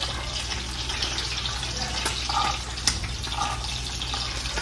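Steady sizzling hiss of fish frying in hot oil, with one sharp tap of a kitchen knife on a plastic cutting board a little before the three-second mark while dalle chillies are sliced.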